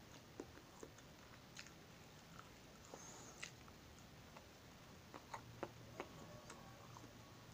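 Faint chewing of a soft hotcake eaten by hand, heard as scattered soft mouth clicks and smacks at an irregular pace.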